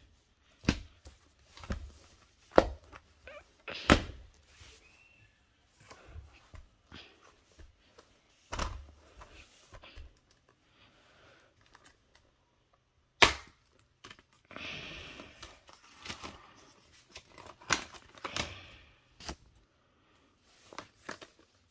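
Plastic DVD and Blu-ray cases and discs being handled: irregular sharp clicks and knocks as cases are opened, closed and set down, with a stretch of rustling a little past the middle.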